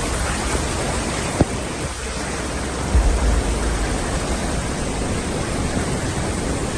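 Steady rushing of water, with wind buffeting the microphone in low gusts, strongest about three seconds in.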